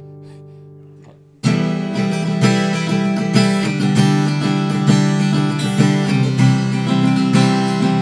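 Martin custom single-0 (14-fret) birdseye maple acoustic guitar. A held chord rings and fades, then about a second and a half in the guitar comes in loud with chords strummed in a busy rhythm.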